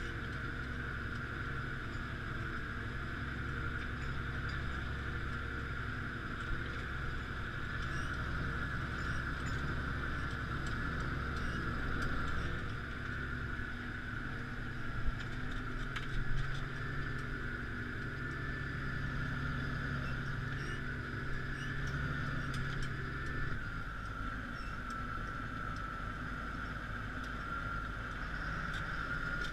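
Claas Axion 840 tractor running steadily while pulling a five-furrow plough, its deep engine note joined by a steady high-pitched whine. The low rumble drops noticeably about three-quarters of the way through.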